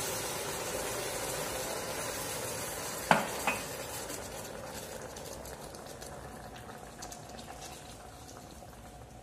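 Hot caramel in a saucepan hissing and bubbling after water has been poured into it, the sizzle slowly dying down as a silicone spatula is worked in the pan. Two short knocks about three seconds in.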